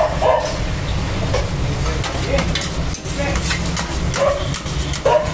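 Busy shawarma stall: metal utensils clinking and scraping on a griddle in short, irregular clicks, with scattered crowd chatter over a steady low rumble.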